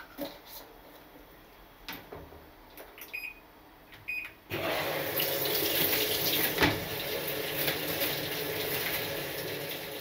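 Top-loading washing machine: a few clicks and two short beeps, then water rushing into the drum from about four and a half seconds in as the machine starts filling. A sharp knock as the lid is shut, about six and a half seconds in.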